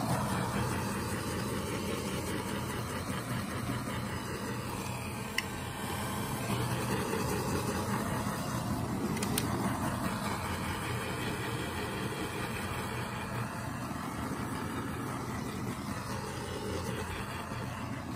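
Handheld blowtorch flame running with a steady rushing hiss as it is swept over wet epoxy resin to pop the surface air bubbles.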